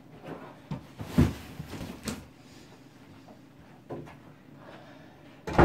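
Large cardboard parcels set down with a heavy thump about a second in and another knock a second later, then a few softer handling knocks, and a short loud knock just before the end.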